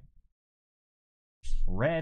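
A man's voice reading out card names, broken by about a second of dead silence.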